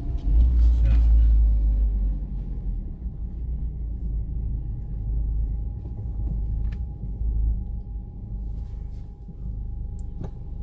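Low, steady rumble of a car's engine and tyres heard from inside the cabin while driving, strongest in the first couple of seconds, with a few faint clicks.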